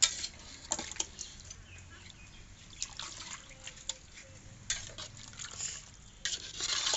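Watery fish-head curry sloshing and dripping in a cooking pot, with scattered sharp clicks of a utensil against the pot.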